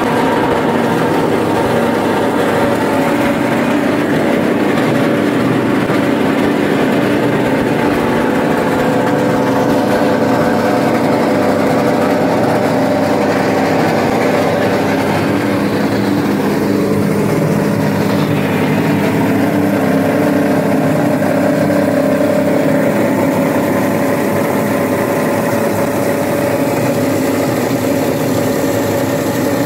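Plastic shredder running steadily under load, its motor's steady drone mixed with the noise of plastic bottles and bags being ground into flakes.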